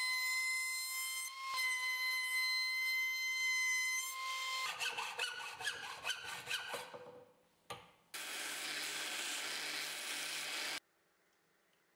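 A table-mounted router running with a steady high whine as plywood is fed past the bit, then a hacksaw cutting a metal tube in quick strokes. After a short gap, an edge belt sander runs as the end of a metal rod is ground on the belt, cutting off suddenly near the end.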